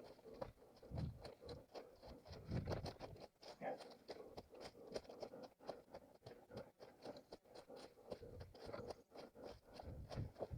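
An orienteering runner's footsteps, crunching and scraping irregularly over rough ground, with a few heavier low thuds.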